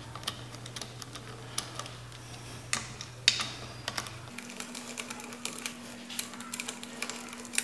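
Scattered light clicks and ticks of small metal parts, bolts and spacers, being handled by hand at a dirt bike's fork clamps, over a faint steady hum that shifts higher about four seconds in.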